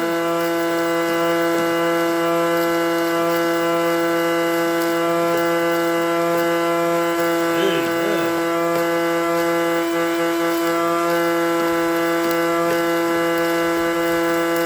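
The 2000 Chevy Silverado's heater and A/C blower fan running steadily, run without its filter, giving a constant whine of several tones over a rush of air.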